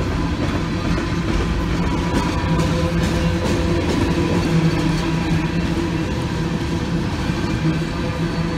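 Two freight trains rolling past at once, an empty coal train's open-top coal cars on the near track and an intermodal train's container cars behind it: a steady rumble of steel wheels on rail, with a steady humming tone over it.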